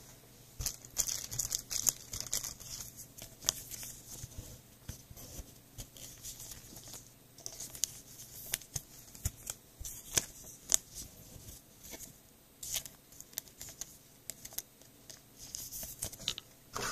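Thin clear plastic card sleeves crinkling as trading cards are slid into them one after another, with many small sharp clicks and taps of card and plastic edges.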